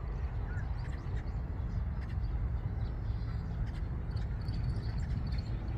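Eurasian tree sparrows chirping faintly, with a short run of chirps near the end, over a steady low rumble.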